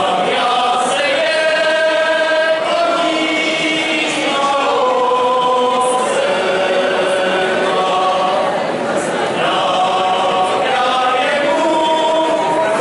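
A group of voices, mostly men, singing a Moravian folk song together in long held notes.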